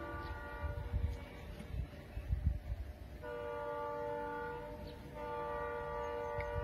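Locomotive train horn sounding long multi-tone blasts: one ends about a second in, a second blast runs from about three seconds to five, and a third starts just after and is still sounding at the end.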